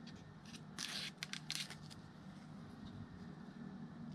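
Old tape being peeled off a heater box: a few short tearing rasps in the first couple of seconds, then quieter, over a faint steady low hum.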